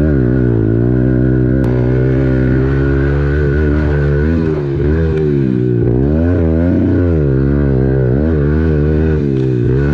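Kawasaki KLX110 pit bike's small four-stroke single, fitted with a cut-down Pro Circuit full-size exhaust, idling steadily, then blipped several times in the second half, its pitch rising and falling with each blip.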